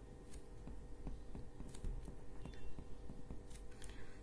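Pen writing on paper: faint scattered scratches and taps of the pen tip, over a low steady hum.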